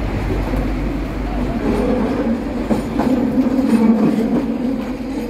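Hong Kong double-decker electric tram passing close by, its wheels rumbling on the rails under a steady hum that swells about a second and a half in and is loudest near the middle.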